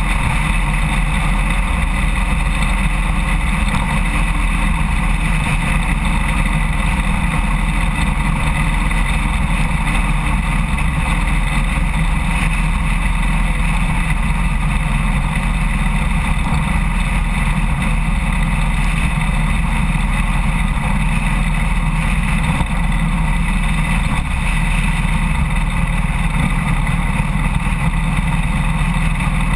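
1993 Road King motorcycle's engine running steadily at cruising speed, under an even rush of road and wind noise.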